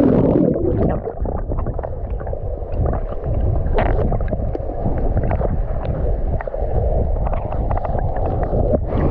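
Water gurgling and sloshing with a steady low rumble and many small splashes and clicks. It sounds muffled from about the start on, as if heard at or just below the water's surface in a waterfall pool.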